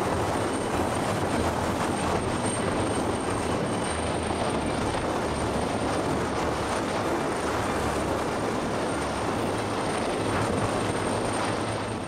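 Steady roar of a rescue helicopter hovering low over heavy breaking surf: the rotor's low throb and a constant high turbine whine over the rush of the waves and wind.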